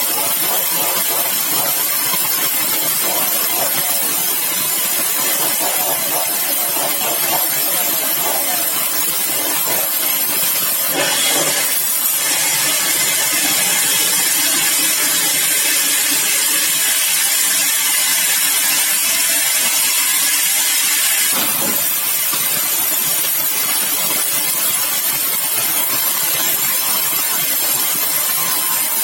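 Sawmill machinery running steadily, a loud constant mechanical noise. It turns harsher and brighter for about ten seconds in the middle, with a faint pitched whine under it.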